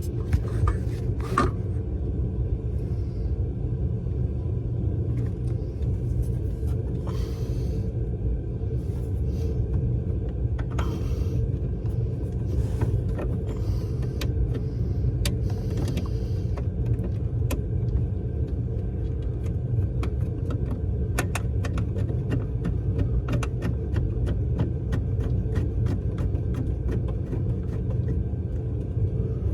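Steady low rumble with scattered light clicks and taps from small parts and hardware being handled during reassembly of a switch and wiring.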